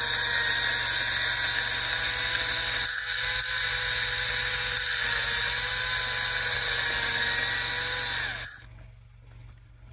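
Makita cordless electric chainsaw running with its bar against a log, a steady high whine of motor and chain whose pitch sags slightly near the end as it takes the load. It stops sharply about eight and a half seconds in.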